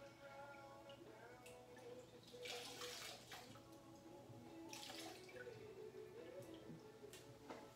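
Faint water pouring from a plastic gallon jug into a can, coming in a couple of short splashing runs, over soft background music.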